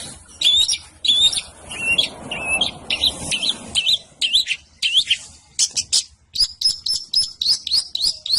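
Long-tailed shrike (cendet) singing a fast, varied song of sharp chirps and short rising whistles. Near the end it breaks into a quick run of repeated high notes.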